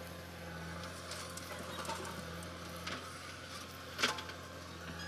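Steady low drone of diesel earthmoving machinery, a backhoe loader and a tractor, running while digging and hauling soil. A brief sharp sound cuts in about four seconds in.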